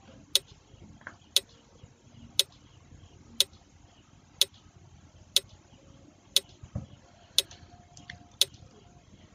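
Clock-tick sound effect of a quiz countdown timer, one sharp tick a second, running out the answer time for a question.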